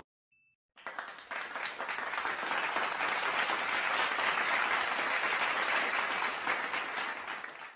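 Applause: many hands clapping, coming in about a second in, building, then fading out near the end.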